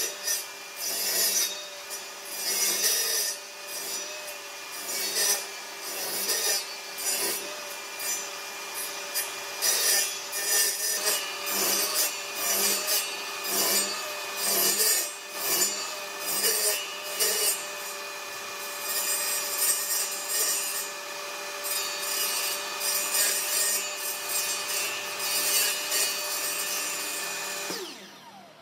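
Table saw running with a steady whine, its blade nibbling a wooden disc in a string of short cuts as the disc is turned against it to round off the corners of an octagon. Near the end the saw is switched off and its whine falls away as the blade spins down.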